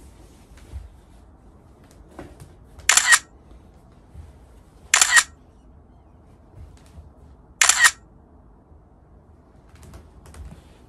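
Camera shutter clicking three times, a couple of seconds apart, each a quick double click like an SLR's shutter.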